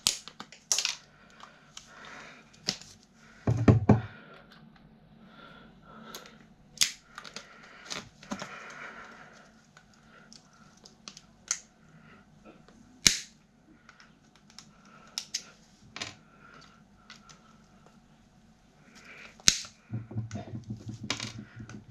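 Hand tools and metal parts working on a desk fan motor as it is taken apart for scrap: scattered sharp snips and clicks, a heavier knock a few seconds in, and some handling noise near the end.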